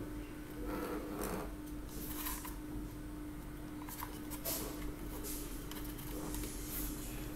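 Rustling and light knocks of a small plastic 12-volt tyre-inflator air compressor, its hose and power cord being handled and turned over on a table; the compressor is not running. A faint steady hum sits underneath.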